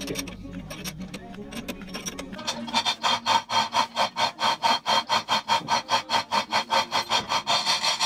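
Hand chain hoist being hauled, its chain ratcheting through the hoist in an even rasping rhythm of about four strokes a second. The rhythm starts a little under three seconds in, after a couple of seconds of fainter tool clicking.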